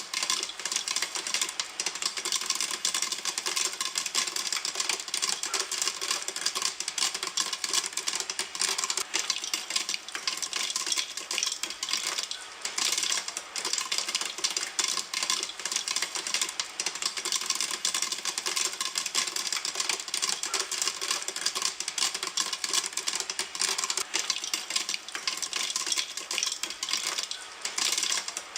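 Popcorn kernels popping in a pan, a dense steady crackle of many fast sharp pops with brief lulls about halfway through and near the end.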